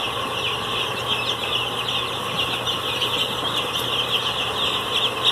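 A flock of eight-day-old Cobb 500 broiler chicks peeping continuously, many high peeps overlapping into a steady chorus.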